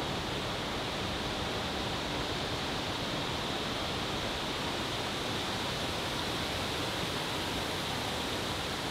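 Steady rushing of falling water from a garden waterfall, an even wash of noise with no breaks.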